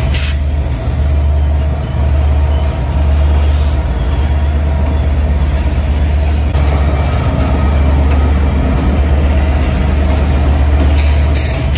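Train running: a steady, deep rumble with a fainter steady whine above it.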